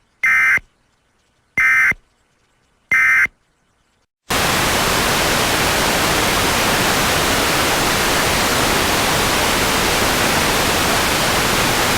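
Emergency Alert System data bursts: three short, buzzy digital tone bursts about a second and a half apart, typical of the end-of-message code that closes an alert. About four seconds in, a loud steady static hiss starts.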